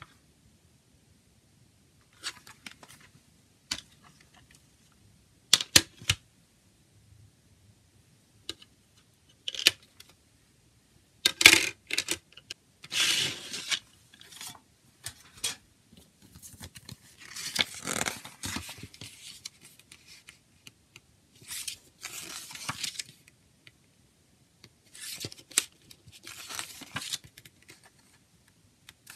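Sharp clicks and taps of a plastic CD jewel case being handled and opened, followed by spells of paper rustling as the insert booklet is taken out and its pages are turned.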